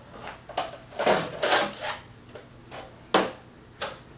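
Handling noises from an RC model helicopter as its canopy is taken off and the model is moved on the desk: a cluster of knocks and rubbing about one to two seconds in, then a sharp click a little after three seconds and another shortly after.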